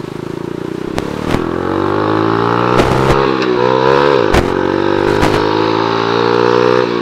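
Small 50cc motorcycle engine revving up under acceleration and held at high revs, its pitch dipping briefly about four seconds in and climbing back, then falling off at the end. A few sharp knocks are heard over it.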